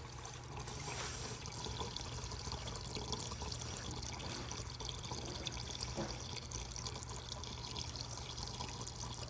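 Water pouring steadily into a car's coolant overflow reservoir.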